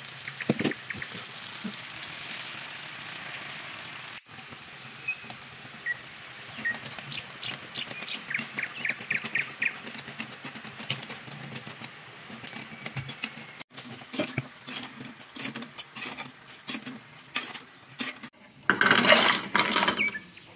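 Battered snail meat deep-frying in a wok of hot oil: a steady sizzling hiss with many small crackling pops. Near the end comes a louder burst of noise as the pieces are lifted out with a wire strainer.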